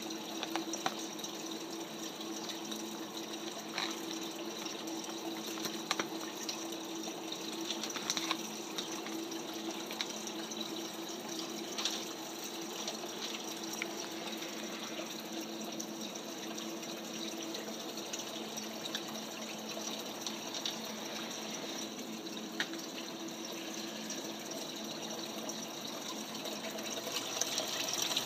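Turtle aquarium's filter return pouring water into the tank, a steady splashing rush over a low steady hum from the pump motor, with a few brief ticks; it grows louder near the end.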